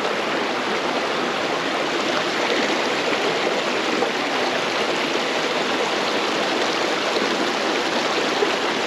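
Small creek's water running steadily.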